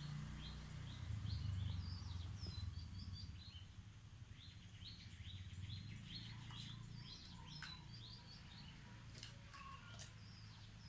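Small birds chirping in quick, repeated high notes over a low steady rumble, with a few sharp clicks in the last few seconds.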